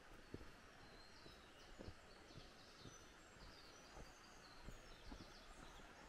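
Faint forest ambience: small birds chirping in short, high, repeated notes over a low steady hiss, with a few soft low thumps.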